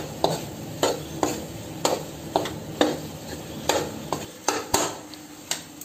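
Metal ladle scraping and clinking against a steel kadhai while stirring boiled potatoes and peas into frying masala, about two knocks a second, over a faint sizzle.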